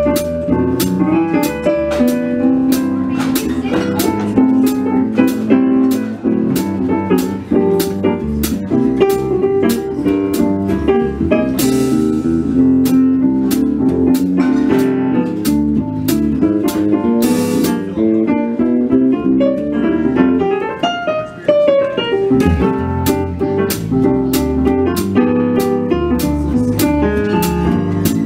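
Jazz duo of a Roland RD-700 stage piano and an electric bass playing a swing tune, the piano carrying chords and melody over a walking bass line. A steady tick keeps time about twice a second throughout.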